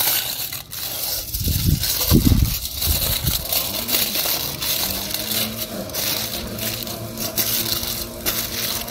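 Aluminium foil crinkling and crackling as it is scrunched by hand around a sweet potato, with a few low thuds of handling about two seconds in.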